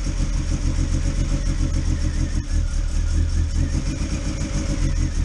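Mazda BP 1.8-litre four-cylinder engine in a Miata running steadily at low speed.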